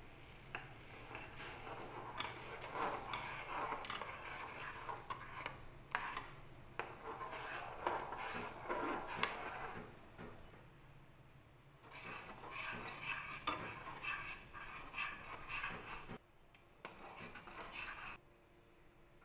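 Metal spoon stirring milky tea in a stainless-steel saucepan, scraping and clinking against the sides and bottom of the pan. The stirring eases off about ten seconds in, picks up again, and stops shortly before the end.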